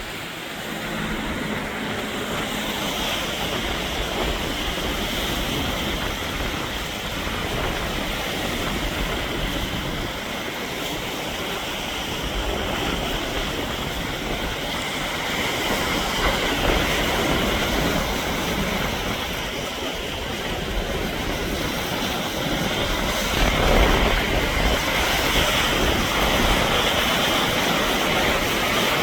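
Lake Erie waves breaking on the shore in strong wind: a continuous rushing roar that swells and eases, loudest about 24 seconds in, with a deep low rumble underneath.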